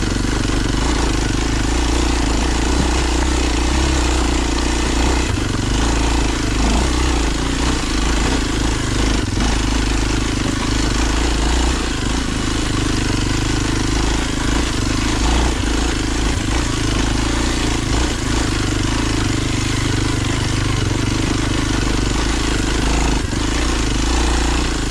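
Kawasaki KLX230's single-cylinder four-stroke engine running steadily with little change in pitch as the dual-sport bike climbs a rocky trail, with a few faint knocks.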